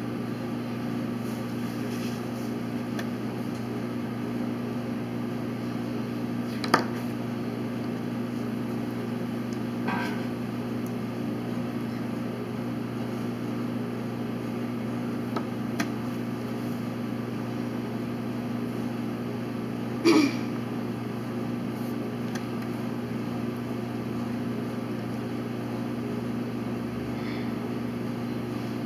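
Steady low hum of room tone, with a few scattered clicks: a sharp click about seven seconds in and a louder knock about twenty seconds in.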